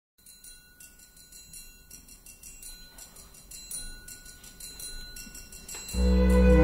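Intro music: soft, high, tinkling bell-like notes that slowly swell. About six seconds in, the full piece comes in loud, with deep bass and sustained chords.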